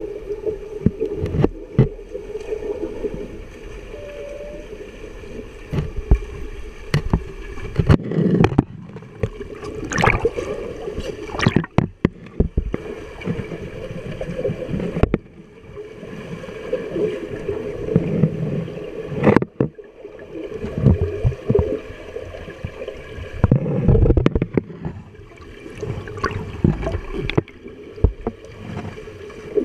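Underwater pool sound heard through a submerged camera: muffled churning water and bubbles with irregular thumps from swimmers' kicks and strokes, over a steady hum.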